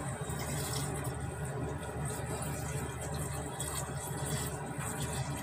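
Broth being poured from a plastic bag into a pot of shrimp, a soft trickle and splash of liquid, over a steady low hum.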